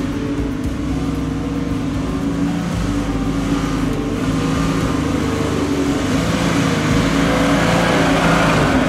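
Toyota LandCruiser 70 Series four-wheel drive's engine running steadily under load as it crawls over deep ruts on a steep dirt track.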